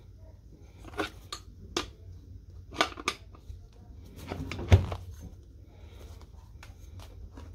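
Crescent wrench working the clamp bolt under a bicycle saddle to take it off its seat post: scattered sharp metallic clicks and clinks, with a heavier knock just under five seconds in.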